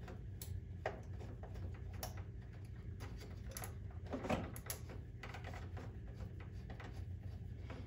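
Small hand screwdriver turning a screw that fastens a grounding wire and washer to a sheet-metal bracket: scattered small metallic clicks and scrapes, with one louder knock about four seconds in, over a steady low hum.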